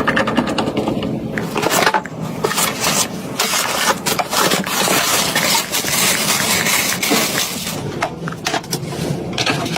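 Hardware being handled and fitted during a PC build: repeated clicks, taps and scraping of metal and plastic parts.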